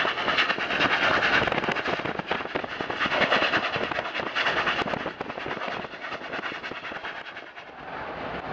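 Union Pacific 844, a 4-8-4 steam locomotive, running at speed: a dense rush of rapid exhaust and rail noise that fades away after about five seconds.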